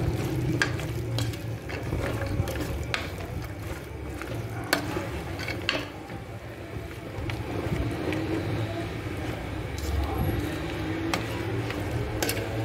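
Wooden spoon stirring white beans with onion, tomato and spices in an aluminium pot: scraping and shifting of the beans, with irregular clicks and knocks of the spoon against the pot. A low steady hum runs underneath.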